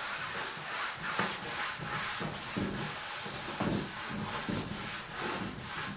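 Sandpaper rubbed by hand over a wooden tabletop in rhythmic back-and-forth strokes, about two a second.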